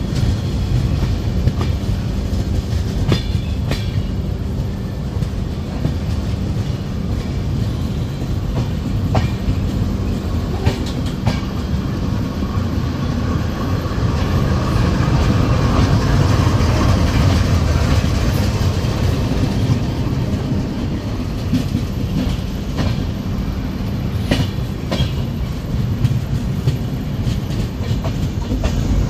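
Train running at speed: a steady low rumble with wheels clicking over rail joints now and then, heard from the open door of a moving passenger coach. About halfway through, the rumble swells as a GE diesel locomotive and its tank wagons pass on the adjacent track.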